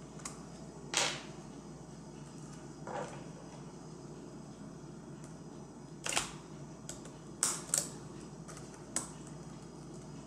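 Irregular sharp plastic clicks and snaps, about six of them, from prying at an Apple iBook G4's keyboard and its stubborn release tabs.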